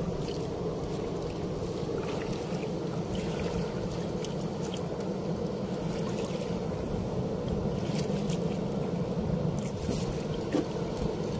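Steady rush of a fast-flowing river current around and against a small wooden canoe's hull, with scattered light ticks.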